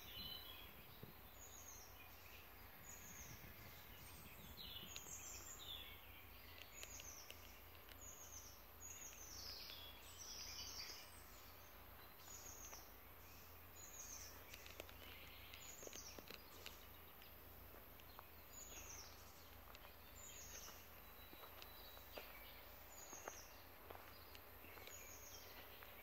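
Faint bird song: one bird repeating short, high notes that slide downward, roughly one a second.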